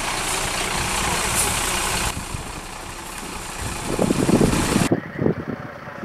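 Diesel engine of a Mercedes-Benz Atego fire engine idling close by, a steady loud noise for about two seconds. Then the sound drops to a quieter distant bed, with a short burst of low rumbling about four seconds in.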